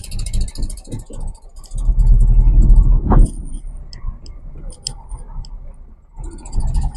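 A tractor's engine going past close by, loudest as it passes about two to three seconds in, with a few sharp clicks afterwards.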